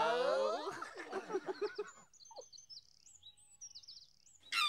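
A high cartoonish voice trailing off in short pulsing giggles, then birds chirping in quick high twittering phrases repeated several times. A short baby's giggle breaks in right at the end.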